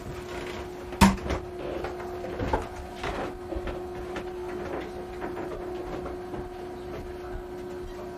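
A sharp knock against a wooden cabin door about a second in, then a few fainter knocks and clicks, over a steady hum.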